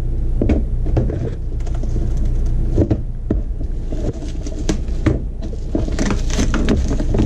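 Plastic packaging crinkling and rustling with scattered clicks and knocks as a new plastic RV roof vent cover and its plastic-wrapped hinge hardware are handled, over a steady low hum.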